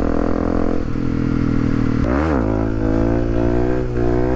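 Honda CRF250L supermoto's single-cylinder four-stroke engine running under way. About two seconds in it gives a quick rev up and back down, then pulls with its pitch rising steadily.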